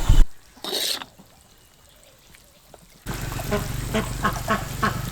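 Ducks quacking in short calls, several a second, starting abruptly about three seconds in, after a brief rush of noise like splashing water about a second in.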